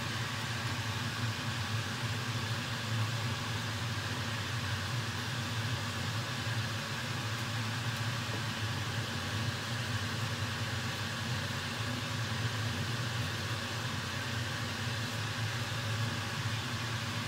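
A steady low hum with an even hiss underneath, unchanging throughout; no distinct knife or cutting sounds stand out.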